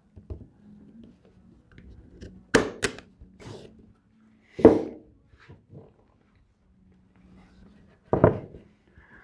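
Sharp snaps of a hand-squeezed framer's point driver firing fasteners into the wooden frame to hold the hardboard backing. There is a quick pair, a louder single one about halfway through, and another near the end.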